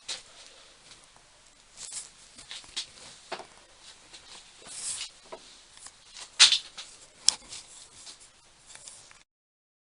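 Irregular clicks, taps and rustling handling noises, the sharpest knocks about six and a half and seven seconds in. The sound cuts off abruptly near the end.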